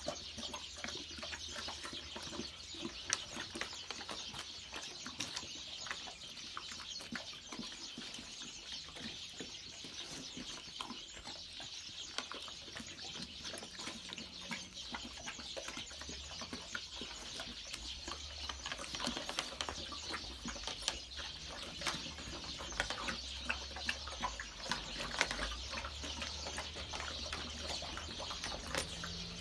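Coonhound puppies eating together from a metal bowl: a steady run of rapid lapping and chewing clicks.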